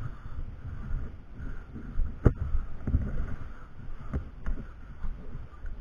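Low rumbling wind and handling noise on a body-worn camera's microphone, with irregular footsteps on a wooden deck and one sharp click about two seconds in.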